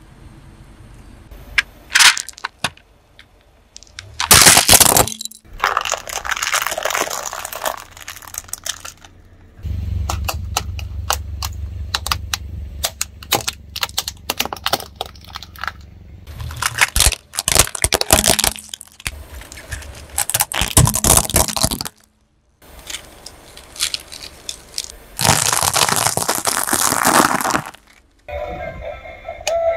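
A car tyre rolling slowly over a series of objects, such as a hard plastic toy and crunchy snack sticks, cracking and crunching them in separate bursts, some short and sharp, some drawn-out crackles. A low hum runs under the middle stretch.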